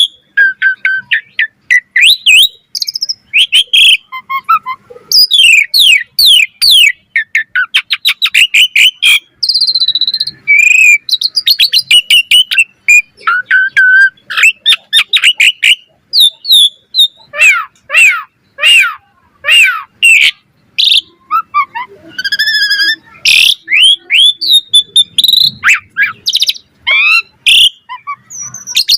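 Pied myna (jalak suren) singing continuously in full song, a fast, varied string of whistles, chirps, falling sweeps and harsh rattling notes broken by short pauses.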